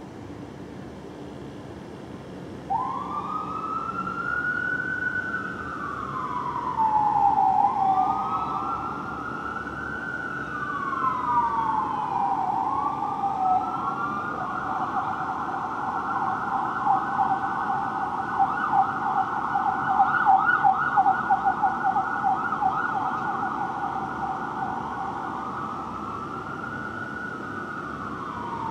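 Fire truck siren. It starts about three seconds in with a slow wail, rising and falling every couple of seconds, switches to a fast yelp around the middle, and returns to the slow wail near the end.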